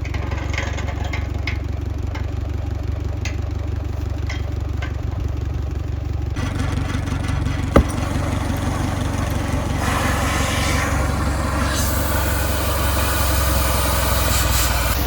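Engine idling steadily, with a single sharp knock about eight seconds in and a louder hiss in the last few seconds.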